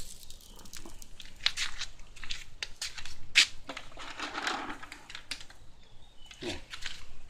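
Irregular crinkling and crackling clicks, several a second, like something dry or crinkly being handled. A short low falling sound comes near the end.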